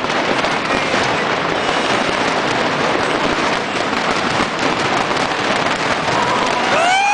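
Big fireworks display: many shells bursting at once in a dense, unbroken barrage of crackles and bangs. Near the end, people in the crowd start whooping and cheering.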